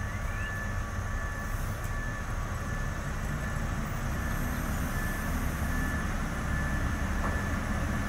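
A concrete pump truck's diesel engine running steadily at a distance, working the hydraulics as the operator tries to lift the boom and right the tipped-over truck, with a faint steady high whine above the low rumble.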